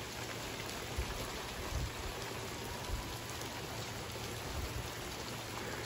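Heavy rain falling steadily, a dense, even hiss, with a few short low thumps.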